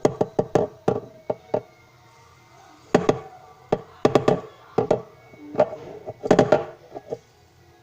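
A series of irregular sharp taps and knocks, some in quick clusters of two or three, with short pauses between.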